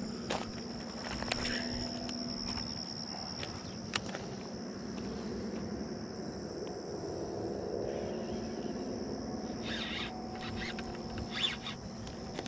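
Insects singing in a steady, continuous high-pitched drone, with a few sharp clicks and scuffs, most of them a little before the end.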